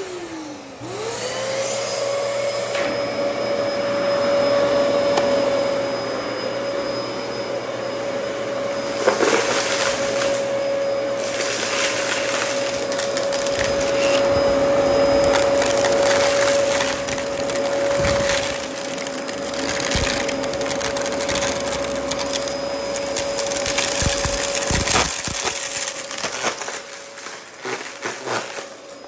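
Dyson DC14 upright vacuum cleaner running on carpet. Its motor winds up to a steady whine about a second in, while the brushroll crunches and crackles through scattered beads and debris. It gets quieter near the end.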